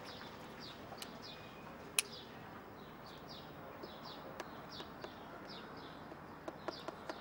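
Small birds chirping: a short, high, falling chirp repeated every half second or so over a faint background hiss. A single sharp click comes about two seconds in, and a few light taps near the end.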